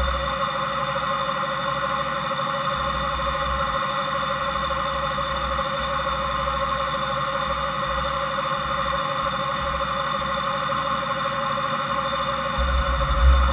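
Fadal VMC5020A CNC vertical machining center running without cutting: a steady mechanical hum with a clear tone, picked up through its spindle head. A low rumble swells briefly near the end.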